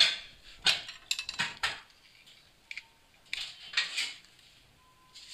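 Wire whisk beating eggs in a glass bowl: its wires clink and scrape against the glass in short, irregular bouts of strokes, with pauses between.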